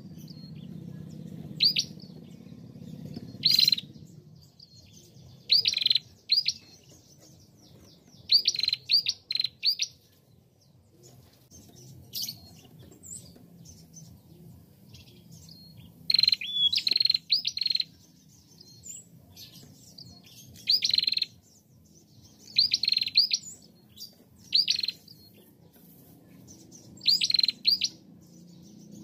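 Female prenjak calling: short groups of two to four sharp, high chirps, repeated every two to four seconds.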